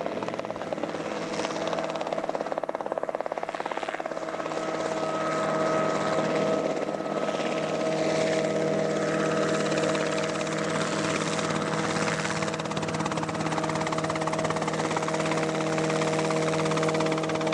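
Homemade helicopter's Subaru engine running, with its rotor turning; it gets louder about five seconds in and then holds steady.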